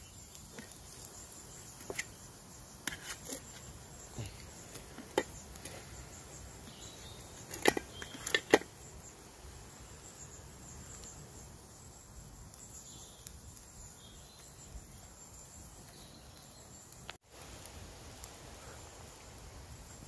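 A knife and fork clicking and scraping against a metal camping plate while a steak is cut, a few short sharp clinks in the first half, the two loudest just before the middle, over a quiet steady woodland background.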